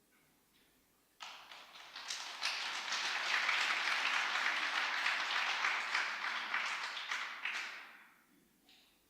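Audience applauding: the clapping starts suddenly about a second in, holds for several seconds, and dies away near the end.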